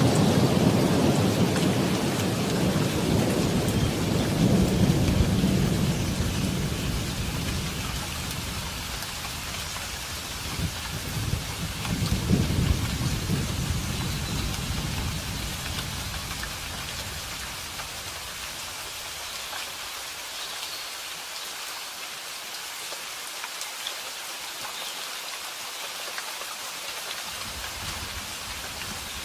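Steady rain falling, with rolling thunder. A heavy rumble fades out over the first several seconds, and a second roll comes about 11 to 14 seconds in. After that only the rain's even hiss is left.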